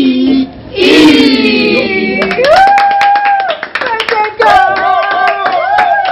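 A small group of people clapping their hands while singing together in long held notes, after a loud falling shout about a second in.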